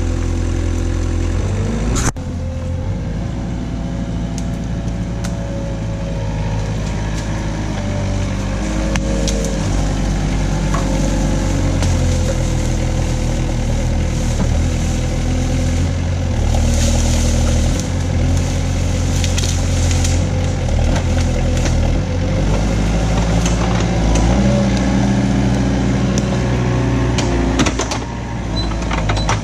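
Knikmops KM 180 TE mini loader's engine running under hydraulic load, its pitch rising and falling as the boom and tree clamp are worked. A few sharp cracks near the end.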